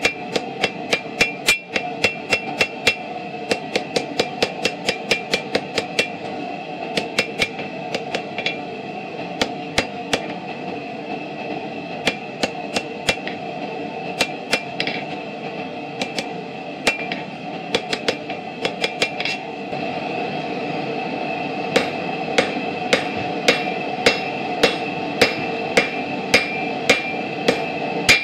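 Hand hammer striking a red-hot railroad spike on a steel anvil, in quick runs of blows with short pauses, each strike followed by a bright ring from the anvil, over a steady background noise. Near the end the blows come slower and evenly spaced, about one and a half a second: the cross-pein fullering the knife blade.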